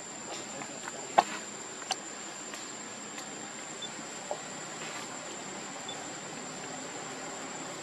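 Steady high-pitched drone of insects such as crickets or cicadas. A sharp click about a second in, and a smaller one shortly after.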